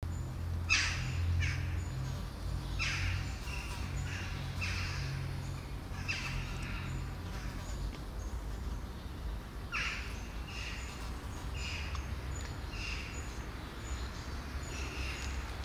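Small birds chirping repeatedly: short high calls that drop quickly in pitch, in loose clusters with a pause about halfway through, over a steady low hum.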